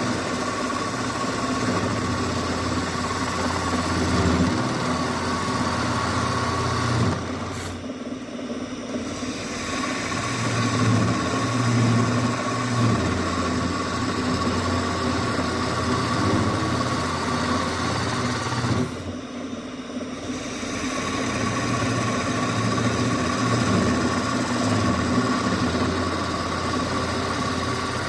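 Wood lathe running steadily, its motor humming while a turning tool cuts a small spinning workpiece with a hissing scrape. Twice the hiss drops away for a second or so while the motor keeps running.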